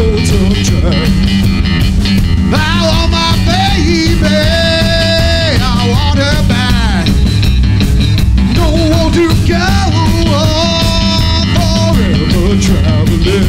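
Live rock and roll band playing: a male singer's voice over electric guitar, upright bass and a drum kit.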